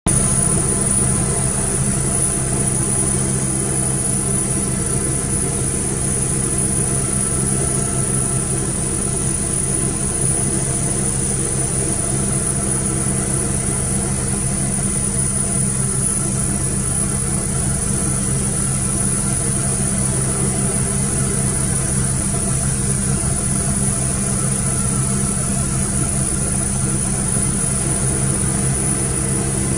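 Westland Wasp helicopter in cruising flight, heard from inside the cockpit: the Rolls-Royce Nimbus turboshaft and rotors run steadily, a low, even hum topped by a constant high turbine whine.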